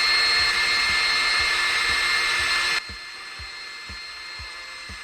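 Electric drill running steadily under load, drilling a hole through a small bracket held in a vise. About three seconds in the sound drops sharply, and the drill spins on more quietly before stopping near the end.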